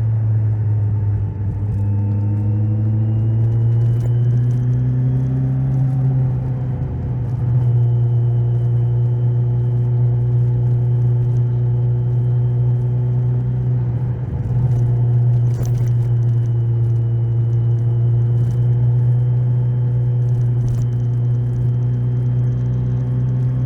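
Kawasaki Z1000SX's inline-four engine running as the motorcycle rides along, revs shifting up and down over the first several seconds, then holding steady at a cruise. The level dips briefly a few times, and a faint high whine runs above the engine.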